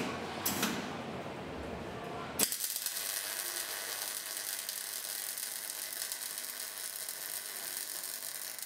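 Wire-feed welding arc on steel tube, a dense sputtering crackle that starts abruptly about two and a half seconds in and cuts off at the end. A few light clicks come before it.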